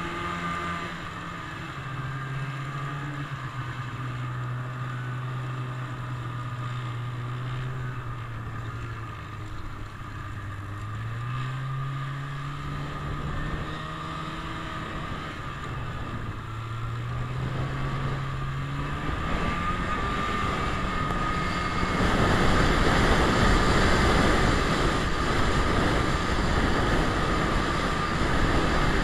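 Snowmobile engine running under way, its pitch dropping and rising several times as the throttle is eased and opened. From about two-thirds of the way in it speeds up and a louder rushing noise takes over.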